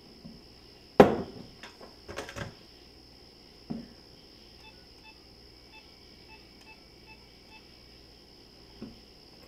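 A corded wall phone's handset is picked up with a sharp click about a second in, followed by a few more clicks and clatters of handling. Then come about eight faint short beeps, evenly spaced roughly every 0.4 s, as a number is keyed in.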